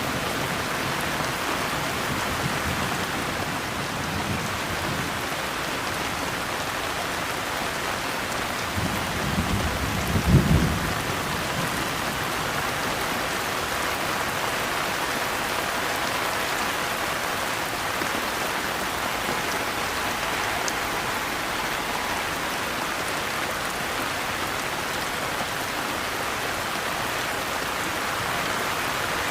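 Steady, heavy rain falling on a surface, with a low rumble of thunder that swells and fades about nine to eleven seconds in.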